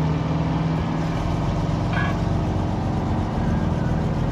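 Fire truck engines idling and running steadily with a low hum, with one brief higher-pitched sound about halfway through.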